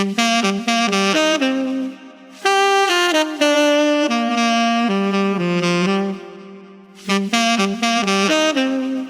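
Saxophone playing a melodic line in three phrases, quick runs of notes at the start and near the end and longer held notes in the middle, with short pauses about two and six seconds in.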